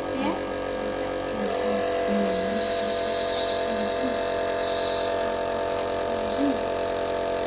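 Nebulizer compressor running with a steady electric hum, which grows stronger about a second and a half in.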